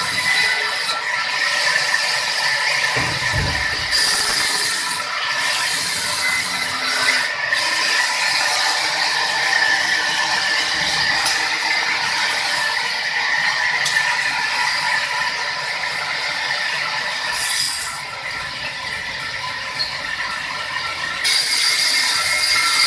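Sawmill saw machine running and cutting timber: a steady mechanical whine with rattling, dipping somewhat about eighteen seconds in and rising again near the end.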